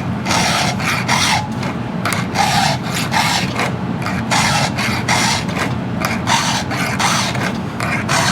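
Hand file rasping across chainsaw chain cutters in quick, even strokes, about two to three a second, over a steady low hum. The chain is only lightly dull, so each tooth takes one or two strokes.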